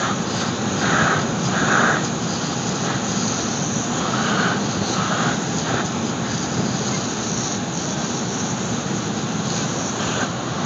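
Steady rush of wind through an open car window, buffeting the microphone, mixed with the noise of the moving car.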